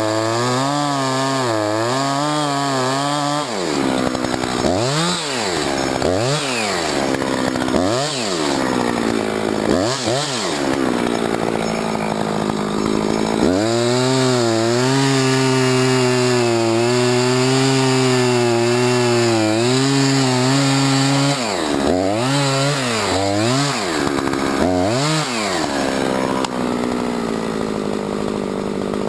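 Husqvarna 357XP two-stroke chainsaw cutting into wood under load, its pitch wavering in the cut, with several quick revs up and down between two long cuts.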